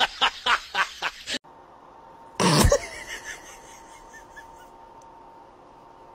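A person laughing in quick bursts, cut off after about a second. Then one short, loud honk-like sound.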